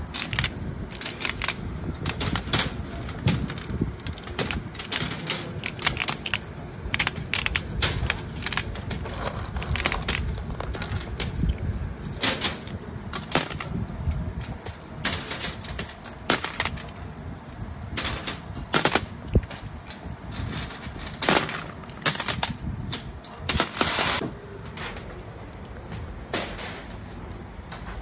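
Irregular clicking and clattering of small hard objects, some strikes louder than others, over a steady low rumble.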